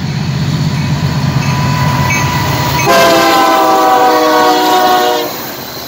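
Union Pacific diesel freight locomotive passing close by, its engine rumbling. About three seconds in, its multi-chime air horn sounds for roughly two and a half seconds, its pitch dropping slightly as the locomotive goes by, then cuts off.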